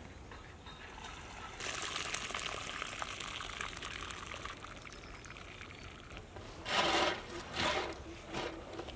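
Hot water trickling and pouring off a large perforated strainer of boiled rice as it is lifted out of the cooking pot, with two short louder sounds near the end.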